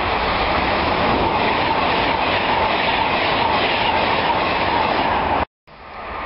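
Class 390 Pendolino electric express passing at speed, a steady, loud rush of wheels on rail and air. The sound breaks off abruptly about five and a half seconds in and comes back.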